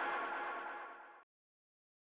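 Background music fading out, then stopping abruptly about a second in, followed by silence.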